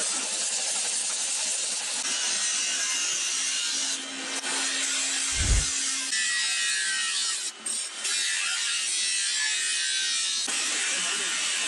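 Motor-driven abrasive wheels grinding and sanding knife blades and wooden handles: a steady rasping hiss that shifts in character a few times, with one heavy low thud about five and a half seconds in.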